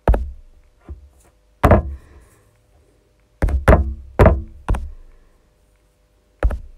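Fingers tapping the buttons of a smartphone calculator app on the touchscreen. About eight sharp knocks come at uneven intervals, with a quick run of four in the middle.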